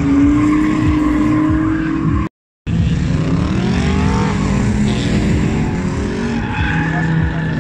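Drift cars on track, their engines revving up and down in pitch over a steady haze of tyre noise. The sound cuts out completely for a moment about two and a half seconds in.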